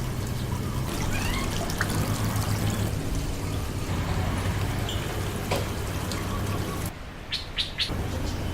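Water running steadily, stopping abruptly about seven seconds in, followed by a few short high chirps.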